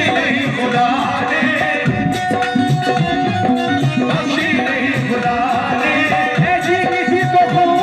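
Qawwali music: a harmonium playing a melody over a steady hand-drum rhythm, with short sung phrases now and then.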